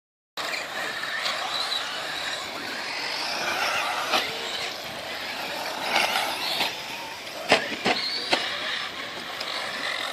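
Tekno EB48 1/8-scale electric RC buggy's brushless motor whining, its pitch rising and falling with the throttle, over a steady hiss. Several sharp knocks come in the second half.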